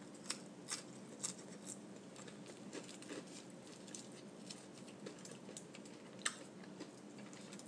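Faint scattered clicks and taps, bunched in the first two seconds and sparse after, over a low steady hum.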